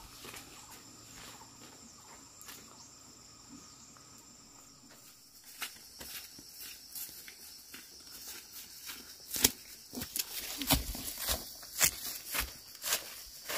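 Footsteps on dry grass and fallen dry corn leaves, irregular rustles and crackles that start about five seconds in and grow louder near the end, over a steady high chorus of insects.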